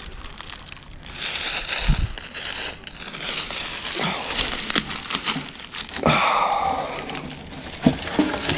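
Footsteps crunching and crackling through dry leaf litter and brush, with irregular snaps and rustles.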